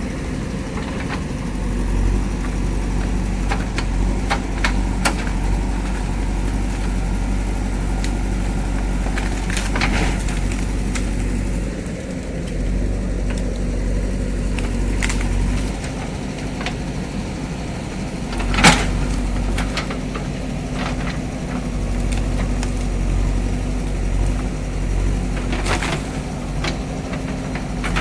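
JCB backhoe loader's diesel engine running steadily, with a few sharp knocks and cracks over it, the loudest about two-thirds of the way through.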